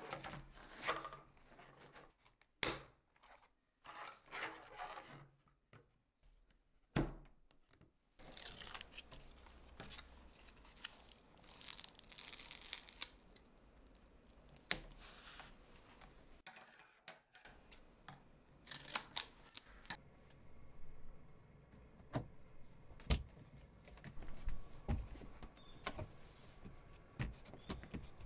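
Hard plastic bag dispenser handled and set down with light knocks and clicks, and double-sided tape pulled off its roll with its backing peeled away in noisy tearing stretches.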